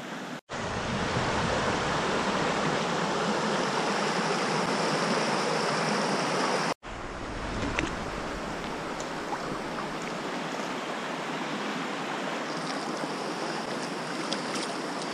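Steady rush of a shallow creek running over rocks at a crossing. It is louder for the first six seconds or so, then softer after an abrupt break.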